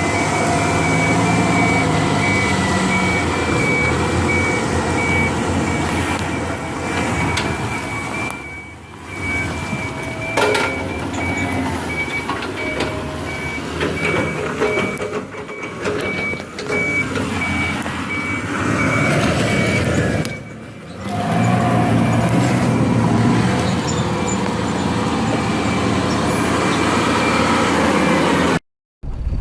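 Heavy construction machinery's diesel engines running under load, with a reversing alarm sounding evenly repeated high beeps through most of it. The sound breaks off abruptly a few times.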